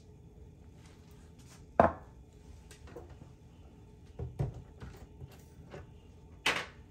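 A few sharp knocks, the loudest just under two seconds in and two more near the middle and near the end, with fainter clicks between, over a low steady background. The oil in the pan is not sizzling.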